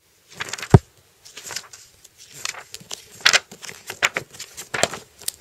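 Paper textbook pages being handled and flipped: a run of short rustles and crinkles, with one sharp thump less than a second in.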